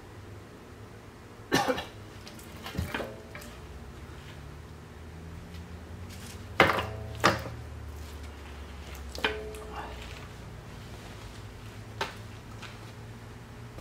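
Steel pin clanking against the mini excavator's stick coupler and thumb bracket as it is worked into its bore: about six sharp metallic knocks, some ringing briefly, over a low steady hum.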